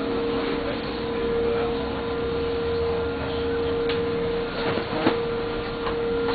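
Ride noise inside a moving city bus: steady engine and road rumble with a constant humming tone, and a short knock about five seconds in.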